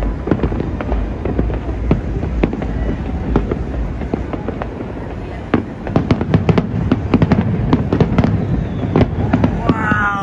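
Many fireworks going off at once across a city: an unbroken run of irregular pops and bangs over a low rumble, getting denser about halfway through.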